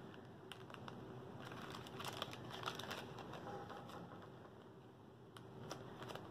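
Faint crinkling and clicking of a small plastic zip-top bag being pinched and pressed shut. Most of it comes in a cluster about one and a half to three seconds in, with a couple of sharper clicks near the end. The zipper is stubborn and not sealing.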